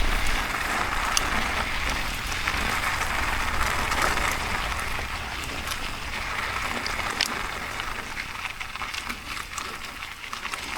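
Mountain bike rolling down a dirt trail: a steady hiss of tyres on the surface with scattered clicks and rattles from the bike, easing off toward the end.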